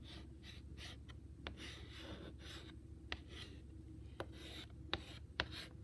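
Chalk scratching on a chalkboard as letters are written, in a series of short strokes with a few sharp clicks of the chalk against the board.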